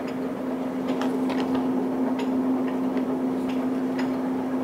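Mazak Oil Country hollow spindle engine lathe running, a steady low hum with light irregular ticks about twice a second.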